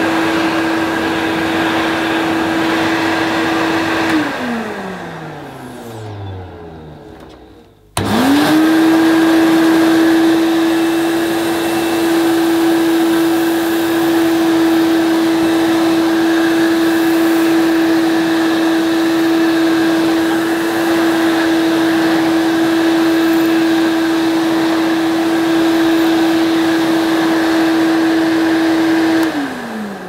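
Motor of a vintage Hoover Portable Cleaning Center canister vacuum (model 2120) running with a steady whine. About four seconds in it is switched off and winds down, its pitch falling. It starts again about eight seconds in, spins quickly up to speed and runs steadily. Near the end it is switched off and winds down again.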